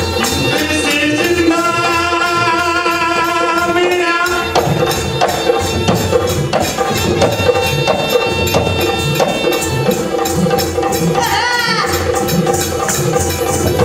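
Live Rajasthani Kalbeliya folk music: a harmonium drone under a wavering held melody, with percussion keeping a steady beat; a swooping melodic run comes about eleven seconds in.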